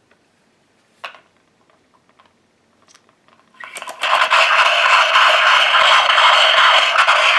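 Small electric motor of a ScienceWiz Edison-style phonograph kit spinning its metal drum through a rubber belt, a loud, harsh steady buzz that starts about halfway through and cuts off at the end. It runs only while the bent on-off switch is held down by hand. A faint click comes about a second in.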